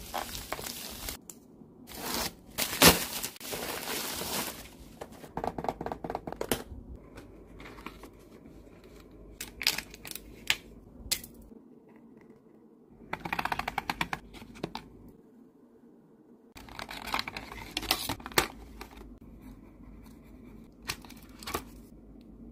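Hands handling a plastic pencil box, with its lids and compartments clicking and snapping and its plastic scraping and rattling in scattered bursts. One sharp snap about three seconds in is the loudest. Crinkling of the plastic sheet underneath comes in with it.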